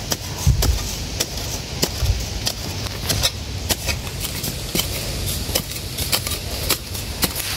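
Long-handled metal digging spade stabbing and chopping into dry sandy soil, a quick uneven run of short crunching strikes, about three a second.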